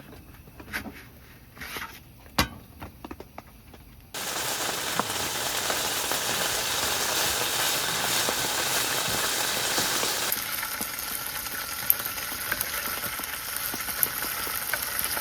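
A few light knocks and clicks, then food suddenly starts sizzling in a hot pan about four seconds in and keeps frying.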